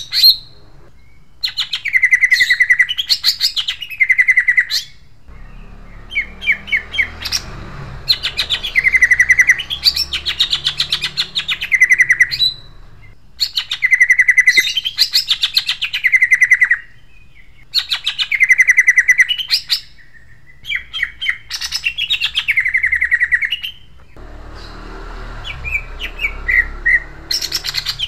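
Male greater green leafbird (cucak ijo) singing loud, harsh, sharp rolling phrases. Each phrase is a rapid trill of notes sweeping down from high to lower pitch, and about seven phrases come in quick succession with short pauses between them.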